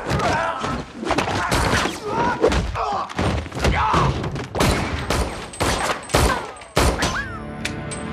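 Action-film fight sound mix: a rapid string of hard hits, thuds and gunshots with men's short grunts, over a dramatic score. Near the end the impacts stop and the music carries on with held notes.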